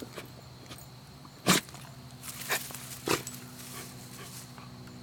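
A dachshund making a few short, sharp sounds. The loudest comes about a second and a half in, and two fainter ones follow over the next two seconds.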